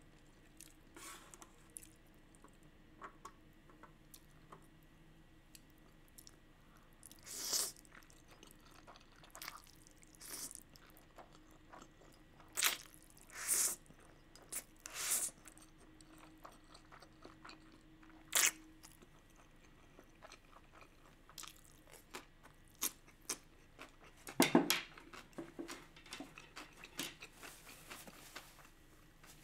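Close-miked eating sounds of a mouthful of spicy instant fire noodles being chewed: scattered short wet mouth noises over quiet stretches, a few louder ones about a third of the way in and again near the end.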